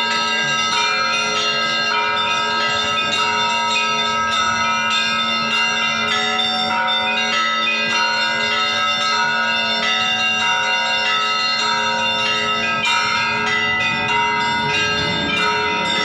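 Church bells ringing: several bells struck in quick, overlapping succession, with a steady low tone sounding beneath them.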